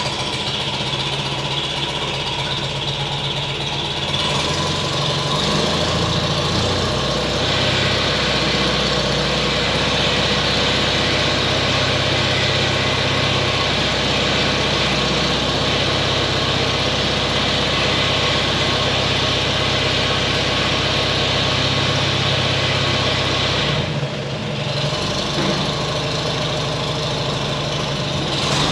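A farm machine's engine running steadily. It picks up and gets brighter about four seconds in and again a few seconds later, and drops off briefly near the end before picking up again.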